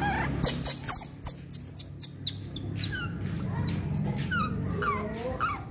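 Newborn baby monkey giving several short, high squeaks that each slide down in pitch, after a quick run of sharp clicks in the first couple of seconds.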